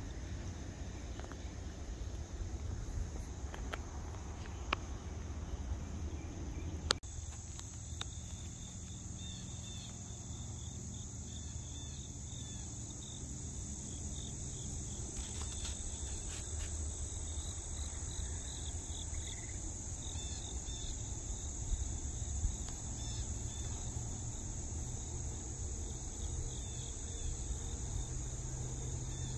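Outdoor ambience of insects chirping steadily in a continuous chorus over a low rumble, with a sharp click and an abrupt change in the background about seven seconds in.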